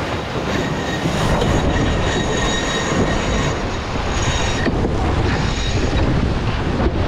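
Extreme 40 racing catamaran at speed: a loud, steady rush of wind and water, with a high whine from about one second in that fades out around five seconds.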